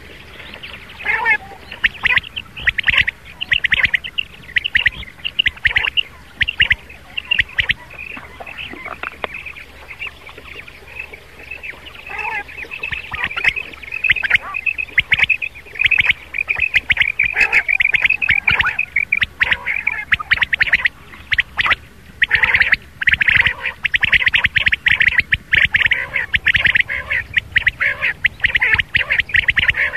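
Recorded quail calls played as a hunting lure: a dense stream of quick, sharp, overlapping calls that grows fuller and louder in the last third, over a steady low hum.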